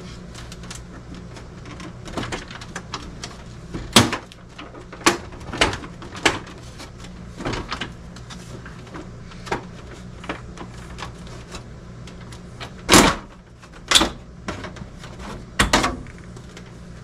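Plastic outer cabinet of a dehumidifier being worked loose and pulled off its chassis: scattered clicks and knocks of plastic, a loud one about four seconds in and a cluster of sharp knocks near the end, over a steady low hum.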